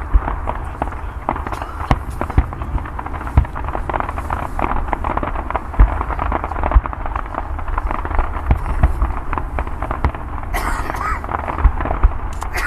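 Fireworks display going off: a dense, continuous crackle with many sharp bangs and frequent deep booms.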